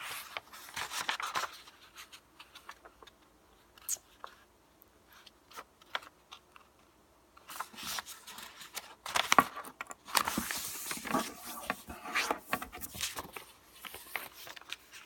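A sheet of paper being handled and folded, rustling and creasing in bursts, busiest in the second half, with a few sharp crinkles and taps.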